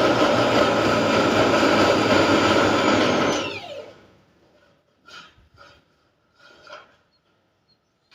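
A handheld electric power tool running at full speed with a high whine, switched off about three and a half seconds in and spinning down with a falling pitch. A few light knocks follow.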